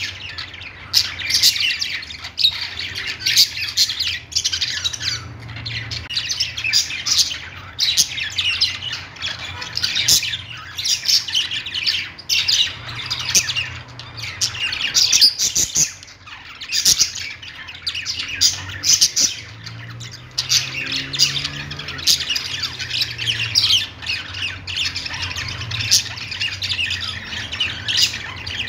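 Budgerigars chattering and squawking without pause, a dense stream of short overlapping chirps.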